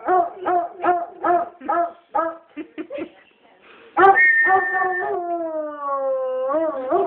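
Foxhound howling: a run of short, rhythmic howling notes, then about four seconds in a loud long howl that slides slowly down in pitch and bends back up near the end, before the short notes return.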